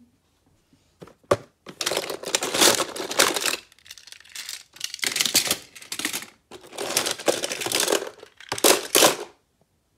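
A pile of small toy cars clattering against each other and the sides of a clear plastic storage bin as a hand rummages through them. The dense clicking and rattling comes in four bursts of one to two seconds each, after a couple of single clicks about a second in.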